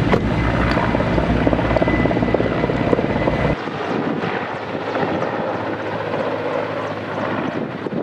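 Helicopter rotor and engine noise from a firefighting helicopter. A heavy low rumble with rapid beating cuts off abruptly about three and a half seconds in, leaving a lighter, more distant rotor sound with wind on the microphone.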